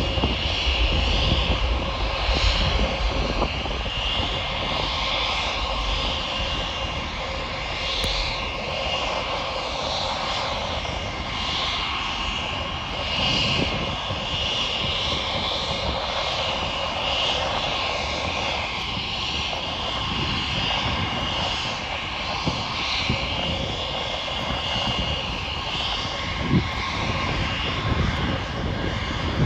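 Jet airliner engines: a deep takeoff rumble fades over the first few seconds, while a steady high jet-engine whine runs on.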